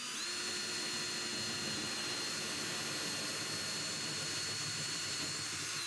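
Cordless drill spinning a 1-inch spade bit, boring a hole through a wall: a steady high-pitched motor whine that stops abruptly at the end.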